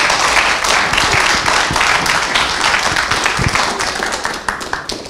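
Audience applauding with many hands clapping, dying away near the end.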